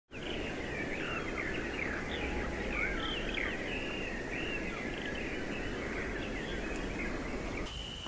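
A chorus of many birds singing at once: overlapping chirps and rising and falling whistles over a steady low background noise. Shortly before the end the sound cuts abruptly to a steady high tone.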